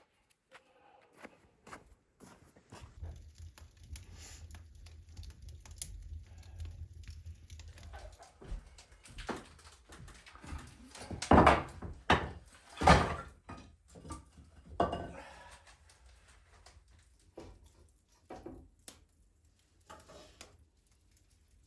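A series of irregular knocks and thuds, the two loudest about a second and a half apart near the middle, over a low rumble in the first few seconds.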